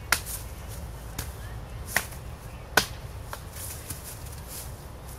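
A few sharp knocks or taps at irregular intervals, three of them standing out: one right at the start, one about two seconds in and one a little under a second later. A steady low rumble runs under them.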